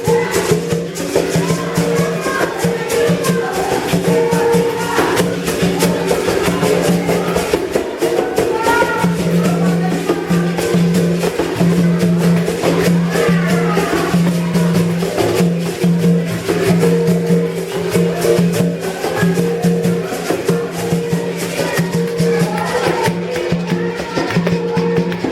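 Capoeira music played on berimbau: the steel string is struck with a stick in a steady rhythm, alternating between a low open note and a higher note, with the shaken rattle of a caxixi on each stroke.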